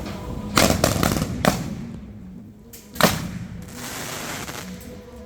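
Fireworks going off: a quick run of four bangs in the first second and a half, then one sharp, loud bang about three seconds in.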